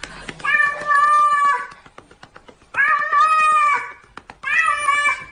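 Hairless cat yowling: three long, drawn-out calls about a second apart, each rising and falling in pitch.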